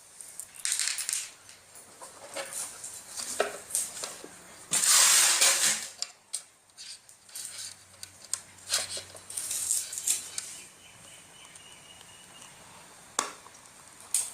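Small metal parts and tools clinking and clicking as a mixer grinder is worked on, with a louder scrape lasting about a second around five seconds in.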